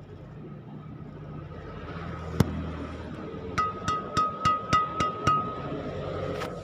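A steady electric hum, broken by one sharp click, then six quick electronic beeps in a row from a digital racket-stringing machine.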